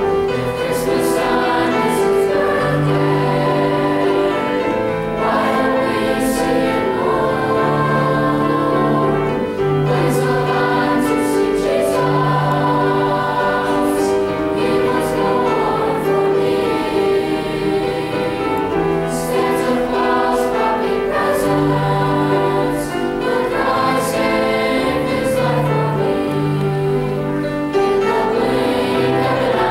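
Mixed junior high choir of boys and girls singing a Christmas song in parts, with held notes under a conductor's direction.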